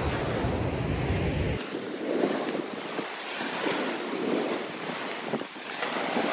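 Loud sea waves breaking and surging against a rocky shore, the surf swelling and falling away again and again. Wind buffets the microphone with a low rumble for the first second and a half.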